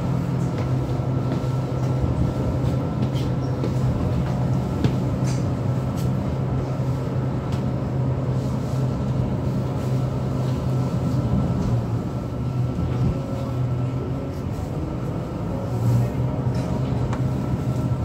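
Diesel passenger train heard from inside the carriage while running along the line: a steady engine drone with a low hum and wheel and rail noise, with occasional faint clicks.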